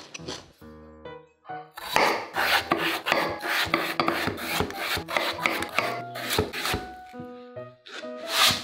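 Rapid rasping, scraping strokes of kitchen prep work on potatoes, over light background music.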